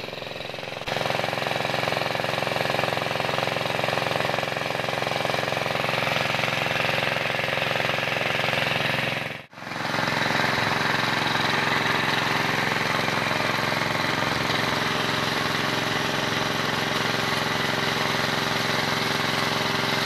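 Tubewell pump engine running steadily, together with water gushing out of the outlet pipe and splashing down. The sound steps up about a second in and briefly drops out about halfway through.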